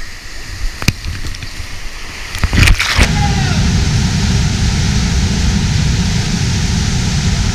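Steady heavy rush of a big glacial-river rapid at high water, coming in suddenly about three seconds in. Before it, a quieter stretch with scattered knocks and thumps.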